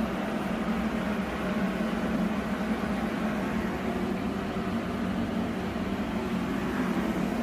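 Steady machine hum with an even hiss, unchanging throughout.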